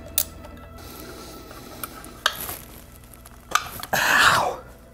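Hand tools and parts handled in a workshop: a few sharp clicks, then a loud scraping rasp that falls in pitch about four seconds in.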